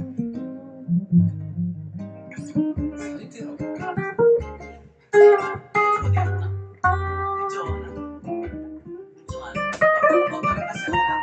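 Electric guitar and acoustic-electric guitar played together as a duo: plucked single notes and low bass notes, growing into fuller chords near the end.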